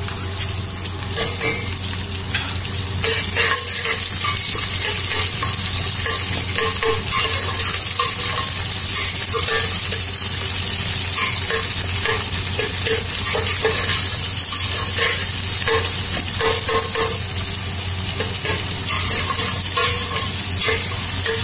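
Sliced onions sizzling in hot oil in a stainless steel pot, with a metal spoon stirring and scraping against the pot over and over. The sizzle grows louder about three seconds in.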